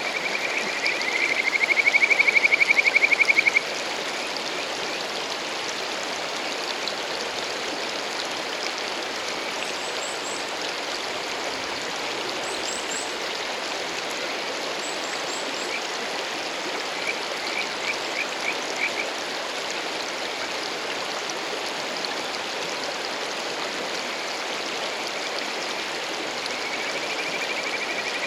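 Male kajika frog (Buergeria buergeri) courtship call: a fast trill near 2 kHz that swells louder and cuts off abruptly about three and a half seconds in. A few short trilled notes come around the middle, and another call builds up at the very end. Mountain stream rushing steadily underneath.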